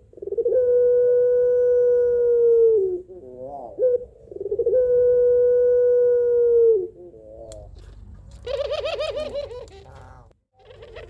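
Ringneck dove (puter pelung) giving two long drawn-out coos: each opens with a short bending note and is then held as one steady tone for about two seconds. Near the end comes a quick rolling run of wavering notes. It is a hen in breeding condition calling for a male.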